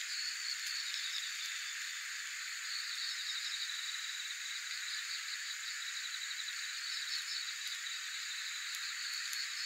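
Insects chirping in rapid trilled bouts of a second or so, repeating every few seconds over a steady high hiss of insect song.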